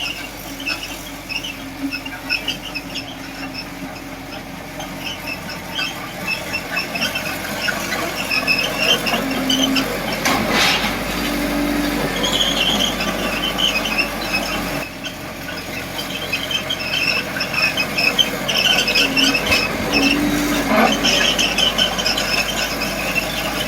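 Komatsu D20P small crawler bulldozer working, its steel tracks squealing again and again over the running engine.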